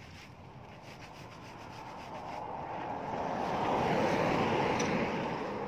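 A car passing on the road, its tyre and engine noise swelling to a peak about four seconds in and then fading.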